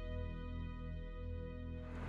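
Background music: soft, sustained instrumental chords.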